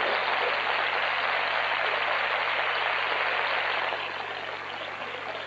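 Theatre audience applauding steadily, easing off slightly near the end.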